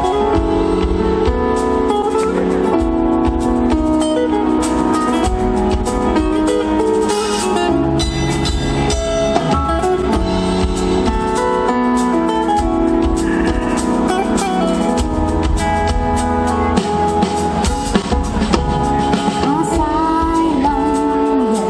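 Live band playing a pop song, with a drum kit keeping the beat under sustained pitched notes.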